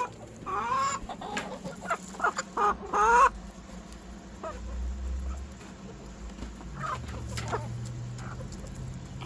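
Domestic hens clucking and calling, with several drawn-out calls in the first three seconds, the loudest about three seconds in, then fainter clucks.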